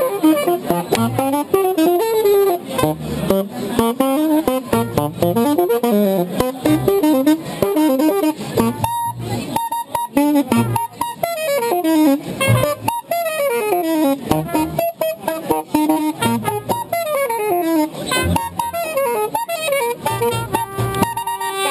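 Acoustic band music in a jazzy style: a guitar and a horn play a melody that runs up and down in quick steps.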